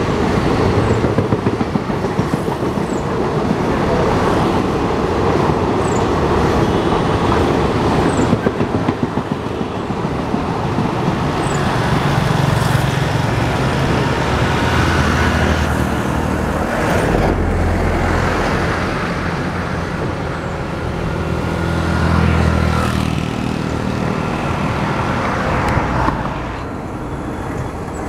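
Passenger train coaches rolling past: a steady rumble and rattle of wheels on the rails, with a quick clatter over the rail joints for the first several seconds. A lower drone joins about halfway through, and the sound drops off a couple of seconds before the end.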